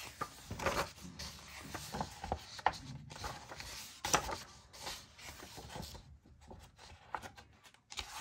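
Paper pages of a colouring book being turned and slid by hand: a series of brief rustles with a few sharper page flicks.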